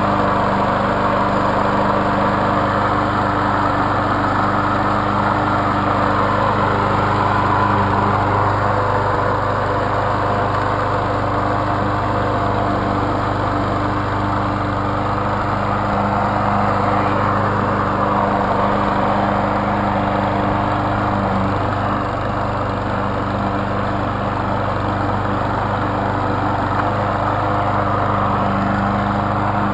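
Troy-Bilt TB230 21-inch walk-behind mower's Briggs & Stratton engine running steadily at full speed while mowing grass.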